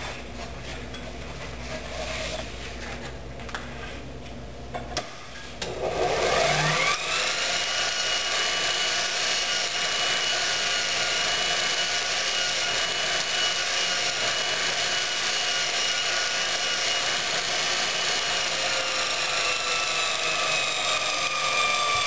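A JET bench grinder with a Multitool belt-grinder attachment starts about six seconds in, its whine rising quickly to speed, then runs steadily while the head of a rusty railroad spike is sanded on a 1200-grit Trizac belt, a rasping hiss under the motor whine. The whine drops slightly in pitch near the end.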